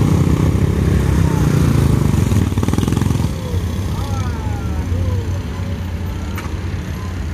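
Motorcycle engines running, loud for about the first three seconds and then dropping to a lower, steadier hum.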